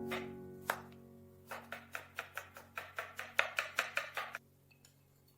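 Kitchen knife chopping vegetables on a cutting board: a couple of single chops, then a quick run of about five chops a second that stops a little over four seconds in. Background music plays underneath.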